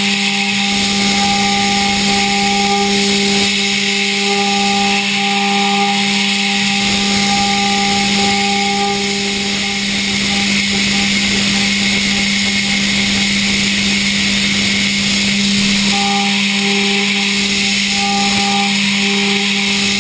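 Okuma GENOS M560V vertical machining centre finish-milling hardened D2 tool steel: a steady high-speed spindle tone over a constant hiss. A higher cutting whine comes and goes as the end mill engages, dropping out for several seconds in the middle.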